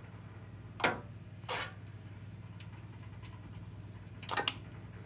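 Drops of goose roasting juices dripping into liquid: one about a second in, another soon after, and a quick few near the end, over a steady low hum.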